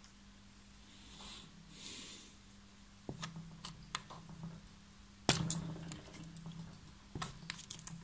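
Small screwdriver working the key out of the crankshaft keyway: soft scraping at first, then a few sharp metal clicks about three, five and seven seconds in, the one near five seconds the loudest.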